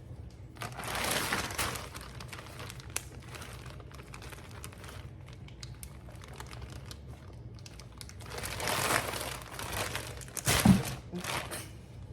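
Plastic packaging crinkling as it is handled, in two longer spells, with a short knock a little before the end.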